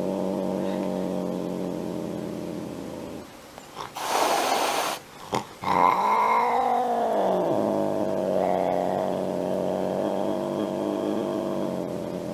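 An angry domestic cat growling in a long low drone. It breaks off a few seconds in for one sharp hiss, then rises into a yowl that swells and falls before settling back into the growl.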